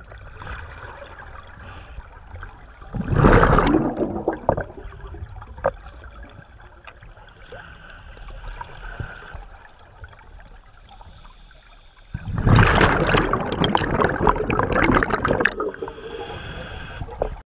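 Scuba divers' exhaled bubbles rushing and crackling out of a regulator underwater, in two loud bursts: a short one about three seconds in and a longer one of about three seconds near the end, over a low underwater wash.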